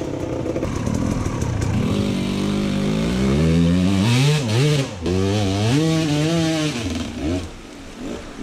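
Dirt bike engine revving up and down in repeated blips as the bike rides down a slope and through a shallow rocky creek, with water splashing about four seconds in. The engine fades near the end.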